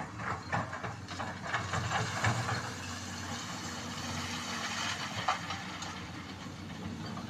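Excavator diesel engine running steadily, with a string of irregular knocks and scrapes in the first few seconds, a hiss in the middle and one sharp knock about five seconds in.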